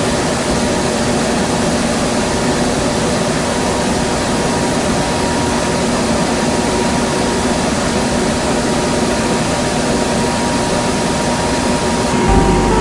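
Steady running noise of the Kintetsu 20000-series 'Raku' electric train, heard from inside the car. It is an even rush with a faint steady hum through it.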